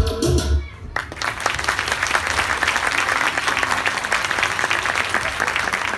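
A dance music track ends with a last beat in the first second, then an audience breaks into steady applause.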